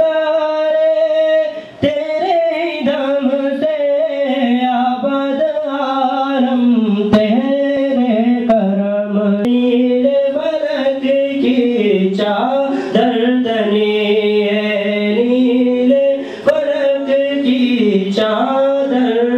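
A young man's solo voice singing a naat, an Islamic devotional song, in long held notes that glide and ornament. It breaks briefly for breath about two seconds in and again late on.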